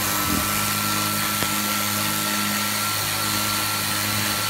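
Hart HPGC011 20V battery-powered pressurized cleaner running steadily: the pump motor hums under the hiss of its water jet spraying onto a grate in a stainless steel sink.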